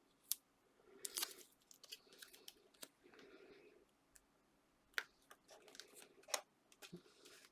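Faint handling of card and paper: a few sharp clicks and soft rustles as adhesive foam pads and card toppers are worked with the fingers.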